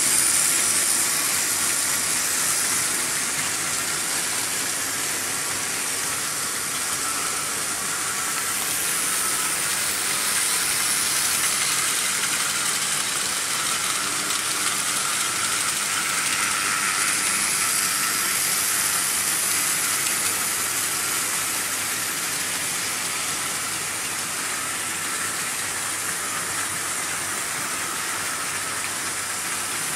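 Several Märklin H0 model trains running at once on metal M-track: a steady rolling hiss and rattle of small metal wheels on the stamped-steel track, with the whir of the AC locomotive motors, swelling a little now and then as trains pass close.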